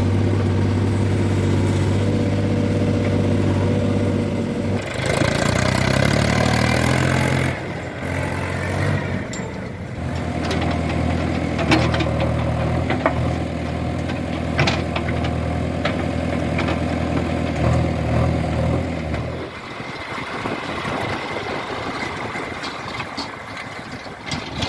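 Heavy diesel engine running steadily. It revs up for a couple of seconds about five seconds in, then runs on with a few sharp knocks and clanks, until its steady note drops away about twenty seconds in.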